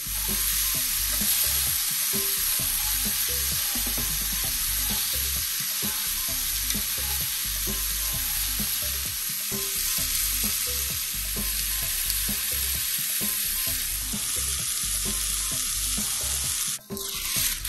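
Broccoli, cauliflower and eggplant sizzling steadily in an oiled nonstick skillet over a gas flame, with metal tongs clicking and scraping as they toss the vegetables. The sizzle breaks off for a moment near the end.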